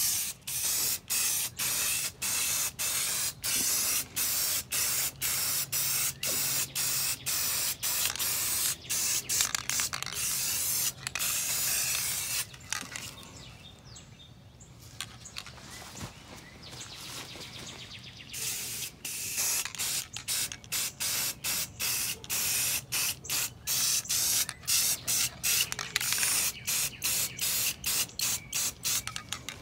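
Aerosol can of spray enamel hissing in short rapid bursts, about two a second, as black paint is sprayed onto sheet-metal engine parts. Several seconds past the middle the spraying stops and only a faint hiss is left, then the bursts resume.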